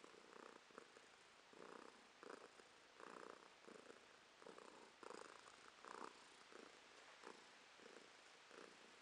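Tabby cat purring while being stroked: a faint purr that swells and fades with each breath, about one and a half swells a second.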